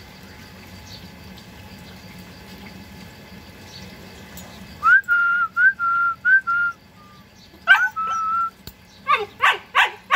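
About halfway in, a run of short high whistled notes, each sliding up and then holding. Near the end, a quick string of high-pitched yips from the German Shepherd puppies, about three a second, each falling in pitch.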